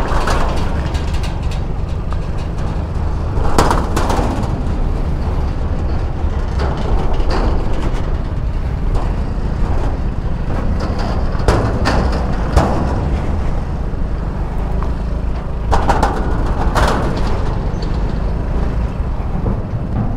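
Yamaha Mio Gear 125 scooter riding along with its engine running under a heavy wind rumble on the helmet-mounted microphone. Several short sharp knocks come along the way, a few seconds apart.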